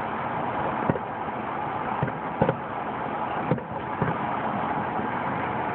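Distant aerial fireworks shells bursting: about five sharp bangs at uneven intervals of roughly a second, over a steady background hiss.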